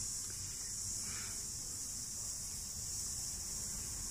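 Cicadas chorusing: a steady, continuous high-pitched buzz.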